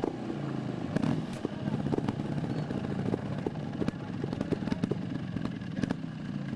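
Two-stroke trials motorcycle engine running at low revs, its pitch rising and falling as the throttle is worked. Scattered sharp clicks and knocks run through it.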